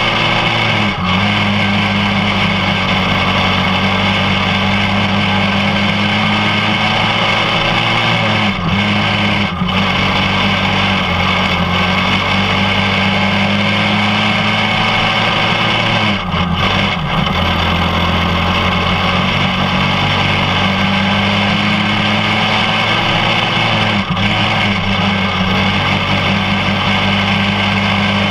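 Champ kart's single-cylinder engine running at steady high revs, heard onboard, with a brief dip in pitch about five times, where the throttle is eased before it picks back up.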